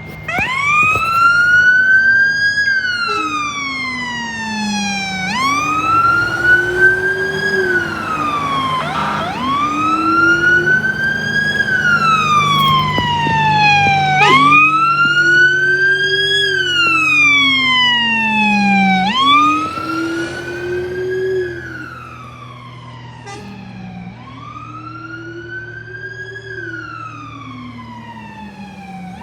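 Fire truck electronic siren on a slow wail, rising and falling about every five seconds, six times, with a low-pitched Rumbler tone following the same rise and fall beneath it and the truck's engine running underneath. It grows quieter about two-thirds of the way through.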